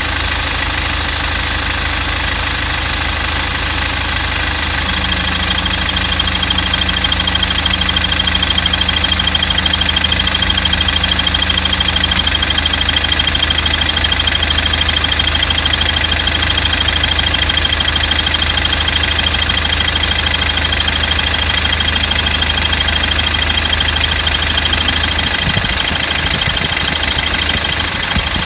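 Car engine idling steadily, with a continuous high-pitched squeak from the engine compartment that comes in clearly about five seconds in and holds steady.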